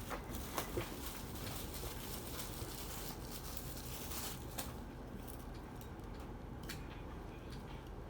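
Faint handling noises from a replacement receipt-printer thermal head being picked up and shown: a few light clicks and some rustling, mostly in the first half.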